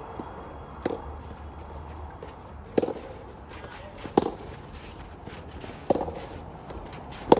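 Soft tennis rally: a rubber soft tennis ball struck back and forth by rackets, five sharp pops about one and a half to two seconds apart.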